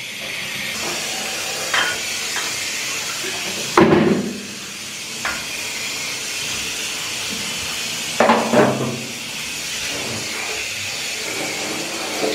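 Water spraying from a hand-held shower head into a bathtub: a steady hiss. Two short voice sounds come through it, about four and eight seconds in.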